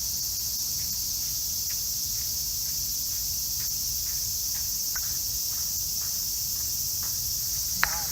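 A steady, high-pitched chorus of summer insects with no breaks. Faint regular ticks run under it, and a single sharp knock comes near the end.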